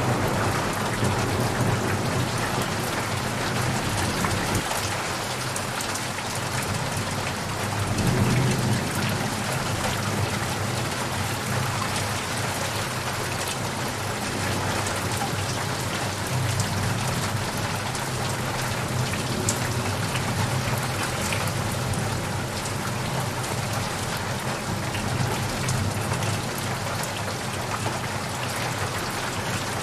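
Steady rain falling hard, with a low rumble of thunder underneath that swells briefly about eight seconds in.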